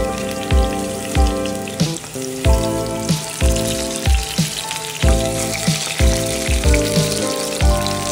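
Eggplant pieces sizzling as they fry in oil in a pot. Over it runs background music with a steady beat of about two thumps a second and held chords that change every second or so.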